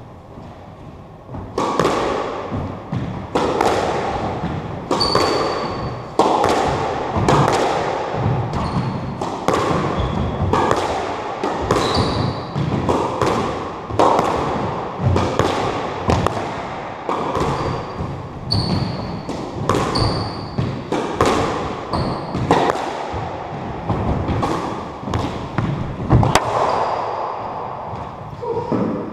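Squash rally: the ball cracking off the rackets and the court walls, one sharp echoing hit about every second, with short high squeaks of shoes on the wooden floor. The hits start about a second and a half in and stop a few seconds before the end.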